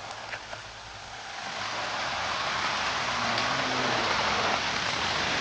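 Steady rushing noise of flood water and rain, swelling louder about a second and a half in and then holding steady.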